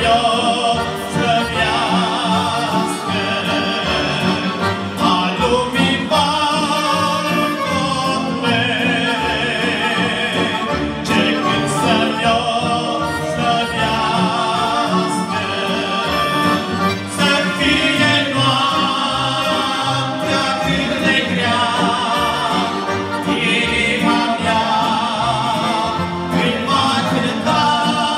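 Two piano accordions playing a hymn-like song together while men sing the melody, the reeds and voices wavering with vibrato.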